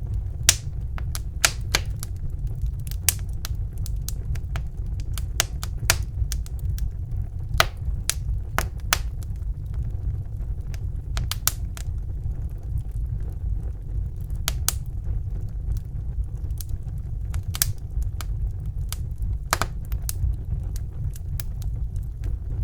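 Wood fire burning in a fireplace: a steady low rumble of the flames with irregular sharp crackles and pops from the burning logs, a few of them louder.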